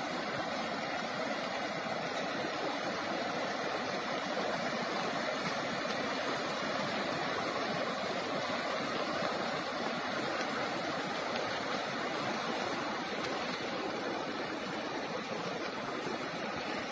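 Steady rush of the Ravi River in flood, fast-moving floodwater running high and wide.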